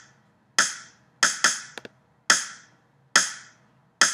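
Soloed snare drum sample from Reason 6's ReDrum drum machine playing a sparse beat: single crisp hits a little under a second apart, with one quick double hit. The channel compressor is switched on partway through, making the hits sound a little harder.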